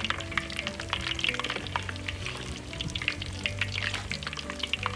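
Fish balls deep-frying in hot oil: a steady sizzle thick with quick crackles and pops.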